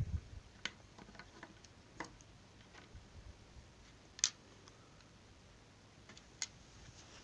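Hands handling small electronic parts, TO-220 transistors, on a wooden desk: a low thump at the start, then a few scattered light clicks and taps, the sharpest about four seconds in.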